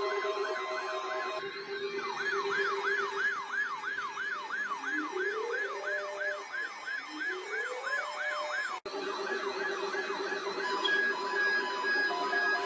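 Several emergency-vehicle sirens sound together. A fast yelp sweeps up and down about three times a second, and a slower wail rises twice. The sound cuts out briefly about nine seconds in; then the sirens resume, joined by short repeated beeping tones.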